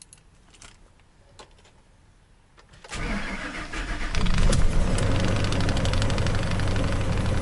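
A few faint clicks, then about three seconds in the Ford F-350's V8 engine cranks and starts. From about four seconds in it settles into a steady idle. The engine is missing on one cylinder, which the owner takes to be number two.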